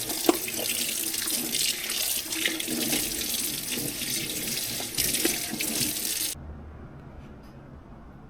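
Tap water running into a sink over the plastic airbox parts as they are rinsed of degreaser and dirt, with a few knocks of the parts being handled. The water is shut off about six seconds in.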